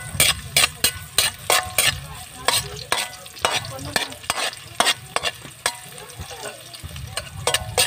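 Metal spatula scraping and tapping against a metal wok as garlic and onion are stir-fried in a little oil, in quick strokes about three a second that thin out near the end. Under the strokes the garlic and onion sizzle in the oil.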